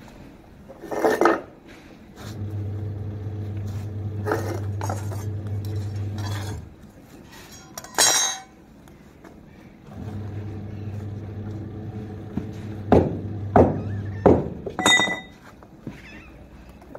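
A metal blade and flat metal strips clinking and scraping against a concrete floor and a clay chulha: a few single clinks, then a quick run of four or five sharper clinks near the end, one ringing briefly. Beneath them a washing machine's motor hums steadily, stopping and starting as it runs its wash cycle.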